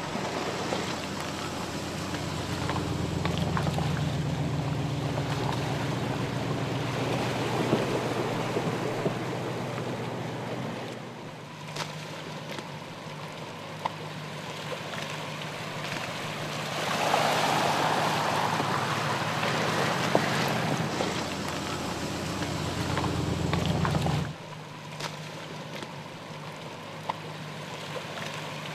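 2015 Porsche Cayenne S's 3.6-litre twin-turbo V6 running at low revs as it crawls along a muddy off-road track, with tyres splashing through mud and water. The sound changes abruptly twice, at about 11 seconds and near 24 seconds.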